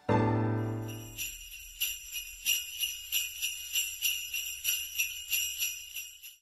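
Sleigh bells shaken in a steady rhythm, about three shakes a second, then cut off abruptly. A low piano note rings and fades away over the first second.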